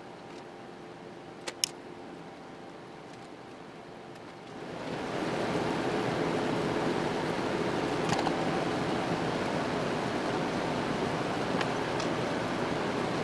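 Shop machinery running with a steady hum, with two sharp clicks about a second and a half in. About four and a half seconds in, a louder, even rushing noise comes up over a second and then holds steady.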